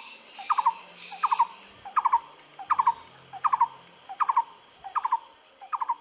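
A bird calling over and over: short bursts of three or four quick notes, repeated about every three-quarters of a second.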